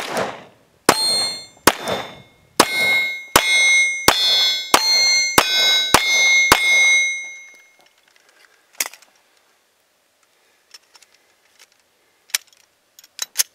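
About ten shots from a Glock 17 9mm pistol, a little under a second apart, each answered by the ringing clang of a bullet striking an AR-500 steel target. The firing stops about seven seconds in, followed by a few faint clicks as the pistol is handled.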